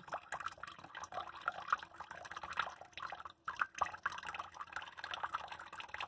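Thin stream of tap water from a kitchen faucet splashing and dripping into a stainless steel sink, the splashes broken up irregularly as a cat drinks from the stream. The water sound drops out briefly a little over three seconds in.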